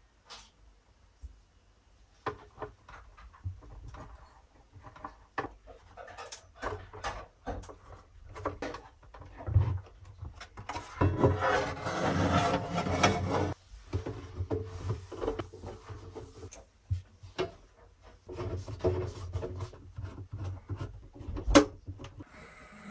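Handling noises from the spot welder's sheet-metal case: scattered small clicks and taps of screws and parts, a stretch of metal scraping and rubbing about halfway through as the outer cover slides on, and a sharp click near the end.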